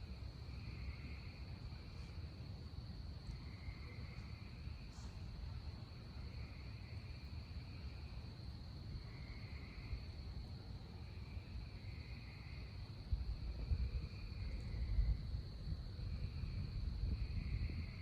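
Night chorus of frogs and insects: a steady high insect trill, with frogs calling in repeated trills about a second long every second or two. A low rumble grows louder about two-thirds of the way through.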